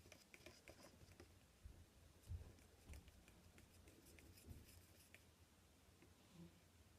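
Faint scraping and light clicking of a mixing spoon stirring glue slime in a plastic bowl, with a few soft low knocks.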